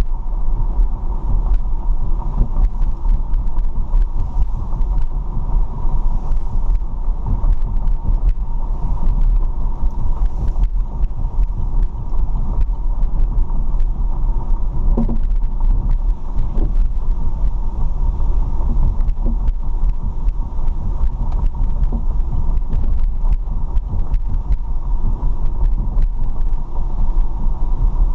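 A car driving, giving a steady low rumble of engine and road noise.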